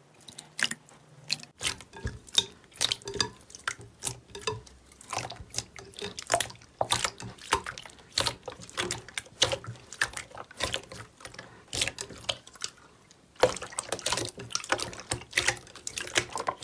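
Slime being squished, making a rapid, irregular series of wet clicks and pops.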